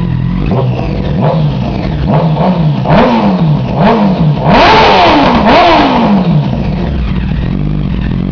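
2008 Honda CBR1000RR's inline-four engine, breathing through a Two Brothers aftermarket exhaust, blipped repeatedly from idle. A string of quick revs rise and fall in pitch, the loudest and longest near the middle, before it drops back to a steady idle.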